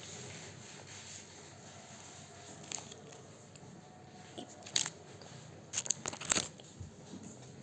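Close-up eating sounds: quiet chewing with a few sharp crunches from biting into food, the loudest a quick cluster of crunches a little before the end.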